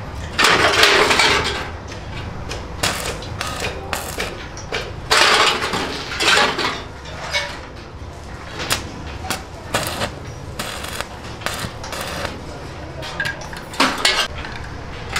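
Stick welder's arc crackling in two short bursts, near the start and about five seconds in, as a thin steel tandoor shell is tack-welded, with metallic clinks and knocks of the sheet steel in between.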